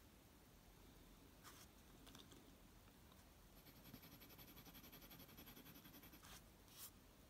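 Faint scratching of a Jinhao 250 fountain pen's medium #5 nib on paper: a couple of single strokes, then a quick back-and-forth scribble for about two and a half seconds as it hatches in an ink patch, then two more short strokes near the end.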